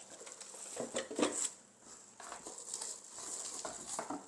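Handling noises from unpacking a Kenwood hand mixer: scattered light knocks and rustles of packaging and parts, with a small cluster just after a second in and another near the end.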